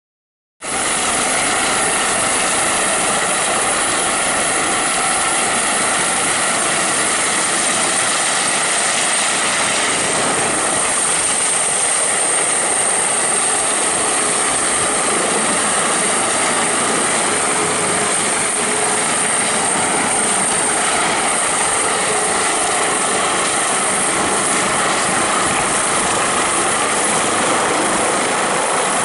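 Airbus H145M twin-turbine navy helicopter in flight and coming to a hover: steady rotor and turbine noise with a high whine, starting suddenly about half a second in.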